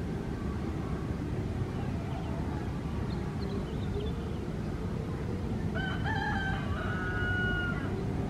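A rooster crows once, a call of about two seconds near the end, over a steady low rumble.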